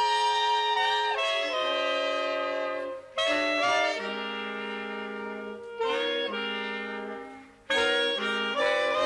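Jazz orchestra wind section (clarinets with trumpet) playing a short passage of held chords in rehearsal. The phrases start loud and fade, with brief breaks about three, six and nearly eight seconds in.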